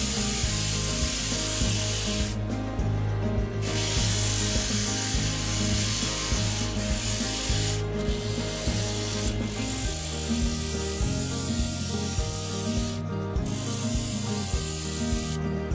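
Sandpaper rubbed by hand over a cut wooden teapot piece, a steady scratchy rasp with a break about two and a half seconds in and another near the end.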